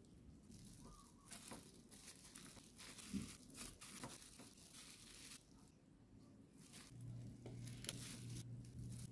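Clear plastic food-handling glove crinkling in short, separate rustles as a hand presses and rolls a sticky rice cake in grated coconut. A faint low hum comes in about seven seconds in.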